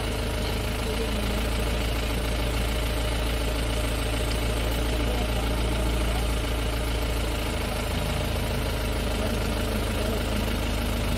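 A vehicle's engine idling steadily, a low even hum.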